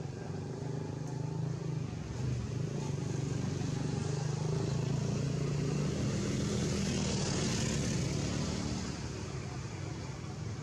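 A motor vehicle passing: a low engine hum with tyre hiss that grows louder over the first half and fades near the end.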